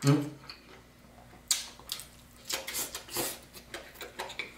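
A man eating spicy food close to the microphone: a short hum right at the start, then irregular wet chewing and mouth noises with short sharp breaths.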